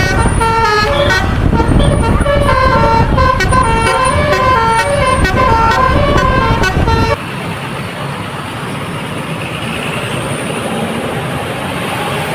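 Bus telolet horn playing a quick melody of short stepped notes, over the loud rumble of the bus's engine. About seven seconds in the horn and rumble stop abruptly, leaving a quieter steady noise.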